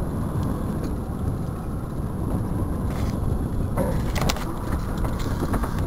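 Steady low rumble aboard a fishing boat on choppy open water, with a few short clicks about four seconds in.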